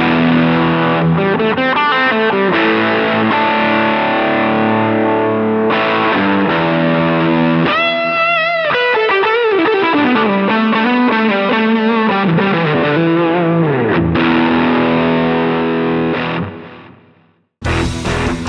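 Sterling Majesty X electric guitar played through high-gain distortion with a boost on: sustained chords and riffing, a wavering vibrato about eight seconds in, then notes sliding down in pitch. The sound fades out, and a new riff starts abruptly just before the end.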